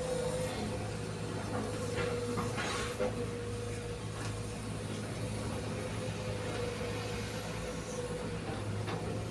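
Heavy diesel machinery running steadily, a low engine hum under a constant mid-pitched whine, with a few light knocks about two to three seconds in and again near the end.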